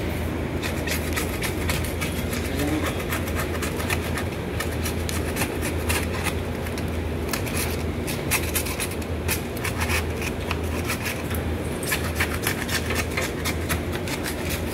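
Quick, irregular scraping strokes of a small blade working around a sanitary waste pipe joint, cleaning it before epoxy is applied. A steady low hum runs underneath.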